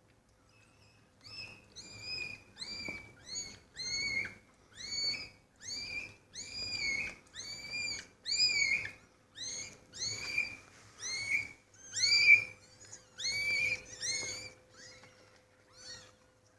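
A kitten mewing over and over, short high-pitched calls about two a second, starting about a second in and growing fainter near the end.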